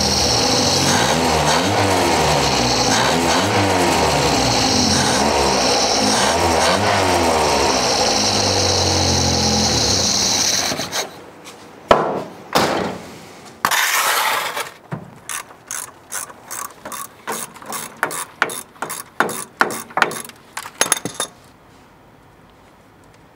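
A machine runs loudly and steadily, its pitch wavering, and stops about eleven seconds in. A couple of knocks and a short hiss follow, then a quick run of clicks like a hand ratchet being worked, which stops a couple of seconds before the end.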